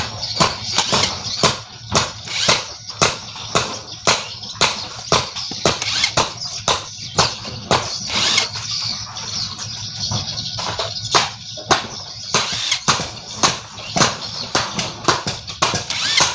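Repeated hammer blows on the metal of an old Yamaha 100 motorcycle engine being smashed apart, about two sharp strikes a second with a metallic ring, easing a little past the middle before picking up again.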